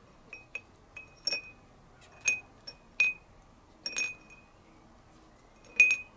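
A magnet and small steel nuts and bolts clinking against a small glass jar as the parts are lifted out of rinse water: about eight irregular sharp chinks, each with a short glassy ring, the loudest near the end.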